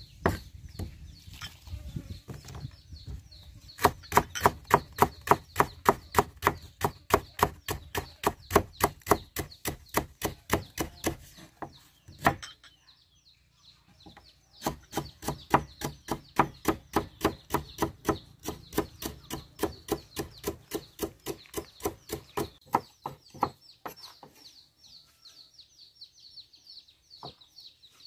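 A cleaver chopping lemongrass on a thick round wooden chopping block: rapid, even knocks about five a second, in two long runs with a pause of about two seconds near the middle. The knocking stops a few seconds before the end.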